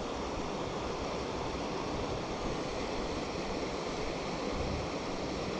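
Steady rush of a shallow river flowing over rocks and riffles.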